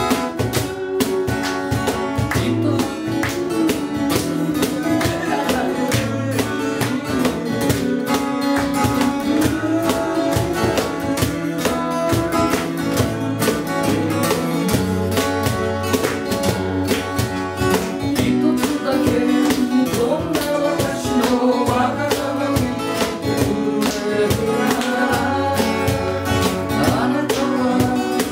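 Two acoustic guitars played together in a live song, strummed in a steady rhythm, with a cajón keeping the beat.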